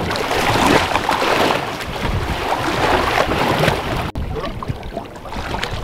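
Sea water slapping and sloshing against the hulls of two small boats, with wind buffeting the microphone. The sound drops out for a moment about four seconds in, then carries on.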